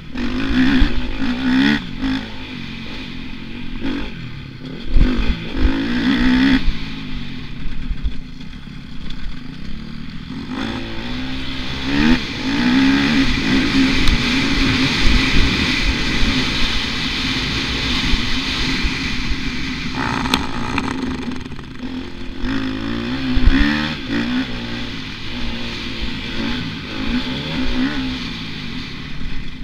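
Motocross bike engine heard from the rider's helmet, revving up and falling back again and again as the rider accelerates and backs off around a dirt track. A few sharp thumps from the bike hitting bumps stand out, around 5 seconds, 12 seconds and 23 seconds in.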